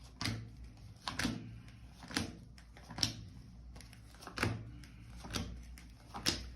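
Tarot cards being handled and laid down on a table: a series of about seven sharp taps and clicks, roughly one a second.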